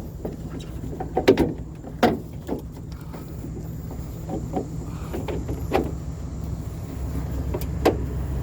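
A vehicle engine idles steadily, with scattered sharp knocks and clatters from a load being handled and secured.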